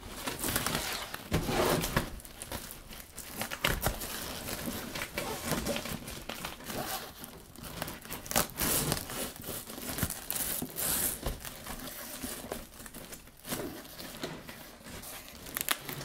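Crinkling and rustling of the fabric panels of a collapsible LED light box as they are folded shut by hand, with irregular short rips of Velcro being pulled apart and pressed together.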